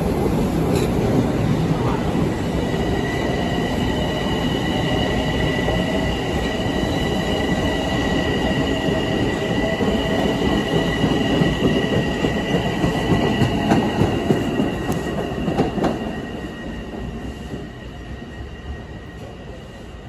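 LIRR M7 electric multiple-unit train running on the rails: a dense rumble with a steady high-pitched whine or squeal on top, fading away from about three-quarters of the way through.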